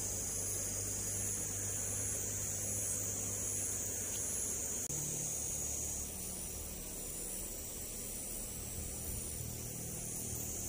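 Steady high-pitched insect chirring that pulses evenly, over a low steady hum.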